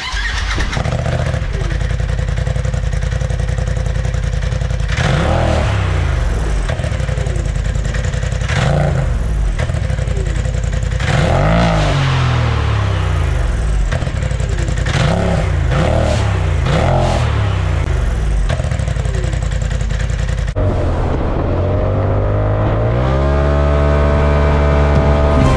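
Polaris XP Turbo side-by-side's turbocharged ProStar engine revved through its exhaust, blipped up and down again and again. Near the end it climbs steadily to a higher pitch.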